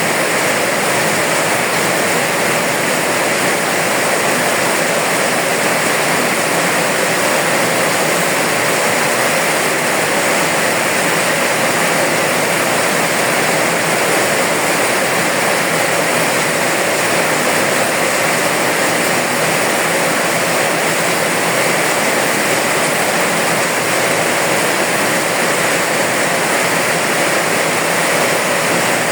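Steady rain falling, an even, unbroken hiss with no separate drops, thunder or other events standing out.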